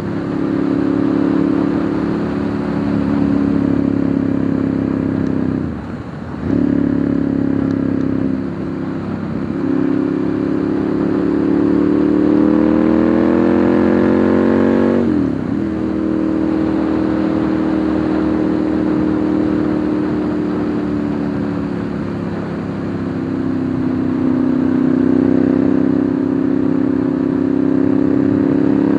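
Ducati Monster 1100's air-cooled L-twin engine running under way. The revs dip briefly about six seconds in and again near nine seconds, climb steadily for about five seconds, drop sharply, hold steady at cruising speed, then rise again near the end.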